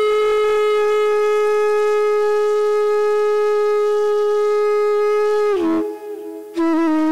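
Bamboo transverse flute (odakuzhal) playing raga Amritavarshini: one long held note that slides down near the end, then after a brief soft break it comes back with a few quick ornaments and settles on a lower note.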